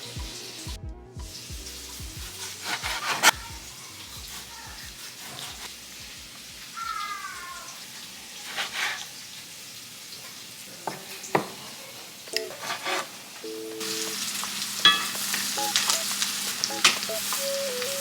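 Food sizzling as it fries in a pan, with the sharp clicks of a utensil stirring against the pan now and then.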